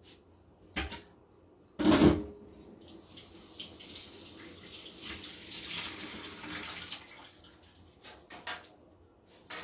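Water running from a tap for about four seconds, with a knock about two seconds in and a few light knocks near the end.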